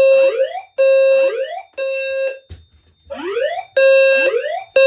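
Fire alarm low-frequency sounder sounding a buzzy 520 Hz tone in the temporal-3 evacuation pattern: three half-second beeps, a pause of about a second and a half, then three more. Between the beeps, rising whoop sweeps repeat from the voice evacuation speakers.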